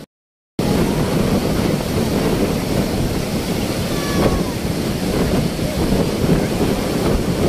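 Surf breaking and washing up on the beach, mixed with wind rumbling on the phone's microphone: a steady, loud rush that cuts in after a half-second gap.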